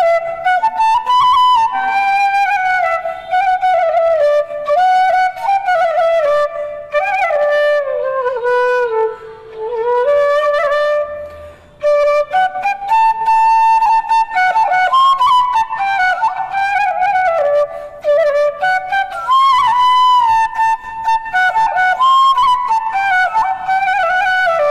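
Solo bansuri (bamboo transverse flute) playing a slow, ornamented melody, with a long downward slide that climbs back up about a third of the way in and a brief breath pause near the middle.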